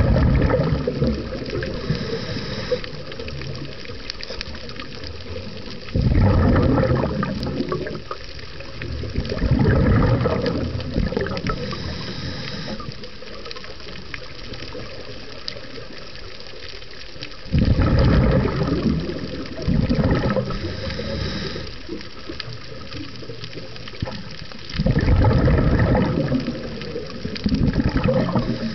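Scuba breathing heard underwater: loud rumbling bursts of exhaled bubbles from a regulator every few seconds, with a fainter high hiss between them over a steady underwater wash.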